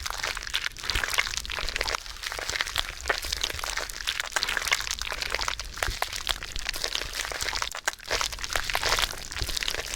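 Slime handled by hand, making a steady run of small crackles and pops.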